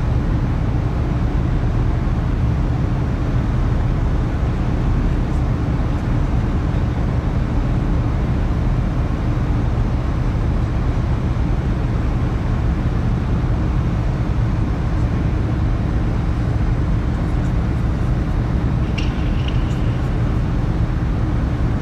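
Car ferry Calanthe Okushiri under way, heard on board: a steady low engine rumble with a faint constant hum, under an even rush of wind and water.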